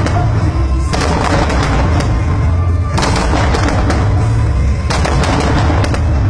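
Aerial fireworks shells bursting in clusters of sharp bangs with crackling tails, about every two seconds, over loud music.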